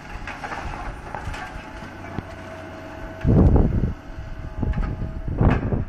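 Demolition excavator running while its grab tears into a house's roof, with a steady engine hum. Debris crashes loudly twice: once about three seconds in, lasting under a second, and again near the end.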